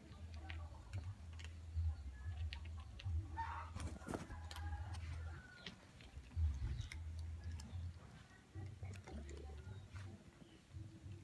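Cats eating dry kibble from a tray: scattered small crunches and clicks, irregular rather than rhythmic, over a low rumble.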